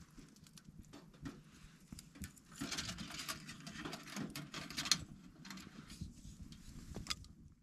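Wood fire crackling inside a small metal wood stove, with scrapes and clicks as the embers are tended, and a sharp metallic clink about five seconds in as the stove door is shut.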